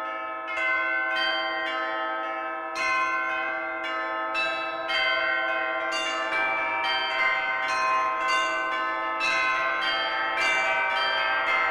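Church bells ringing, struck one after another in quick succession, each bell ringing on under the next.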